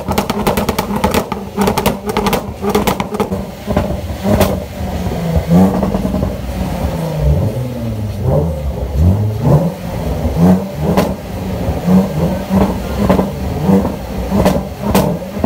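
Jaguar F-Pace SUV engine revved in park, a run of short throttle blips that each rise and fall in pitch, starting about five seconds in.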